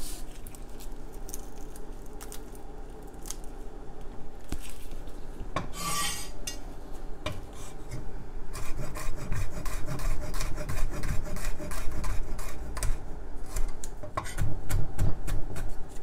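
Chef's knife on a wooden cutting board: scattered taps and a scrape as garlic cloves are crushed and cut, then, from about eight seconds in, rapid repeated chopping as the garlic is minced.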